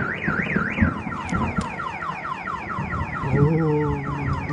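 Car alarm siren sounding, first a wailing tone sweeping up and down about three times a second, then switching after about a second to a rapid run of falling chirps. A lower tone joins briefly near the end.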